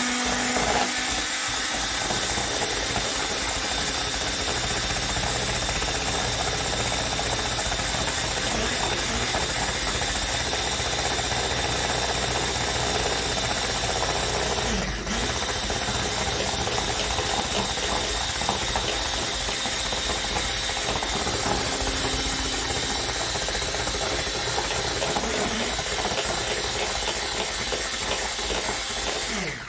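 Electric hand mixer running steadily, its twin beaters whipping eggs and sugar in a bowl until the mixture turns pale, with a brief dip about halfway.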